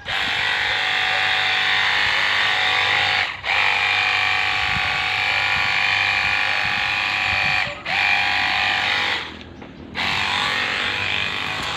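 Battery-powered washing water gun spraying: its small electric pump runs with a steady whine over the hiss of the spray. It stops for a moment twice, cuts out for about a second near the end, then starts again a little quieter.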